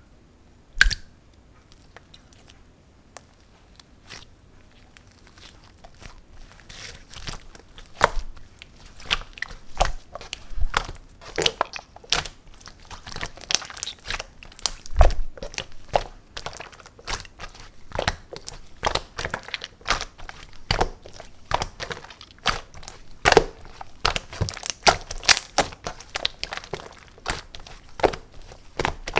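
Hands kneading and pressing clear slime with clay mixed in, making irregular sticky clicks and pops. They are sparse at first and come thick and fast from about six seconds in.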